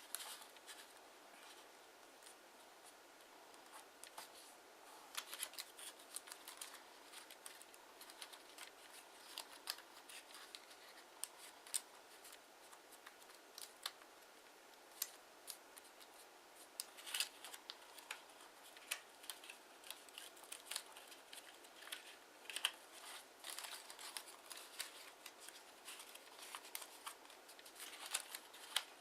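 Kraft origami paper being folded and creased by hand: irregular crisp rustles and sharp crackles.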